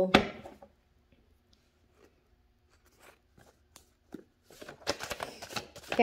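Tarot cards being handled on a table: a sharp knock at the very start, a few seconds of near quiet with the odd faint tick, then a quick run of soft clicks and taps as the cards are shuffled and pulled near the end.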